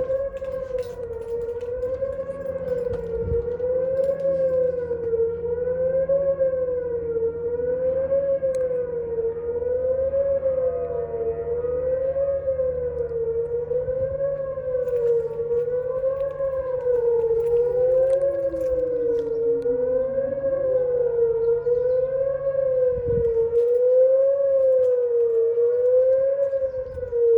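Outdoor tornado warning siren sounding a loud, steady tone during its monthly test, the pitch wavering up and down about every second and a half. Partway through, a second, fainter tone glides down in pitch.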